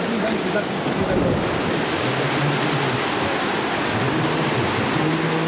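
Steady rushing of whitewater pouring down an artificial slalom canoe channel. A low held tone sounds twice over the water noise, near the middle and at the end.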